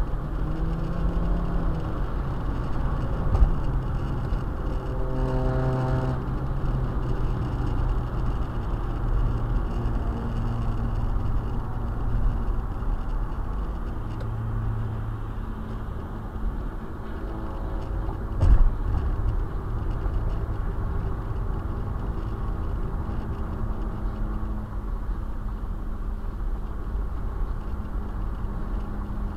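In-cabin road and engine noise of a 2010 Nissan Versa hatchback driving at highway speed: steady tyre rumble with the engine's drone underneath. Two short knocks cut through it, the louder one a little past the middle.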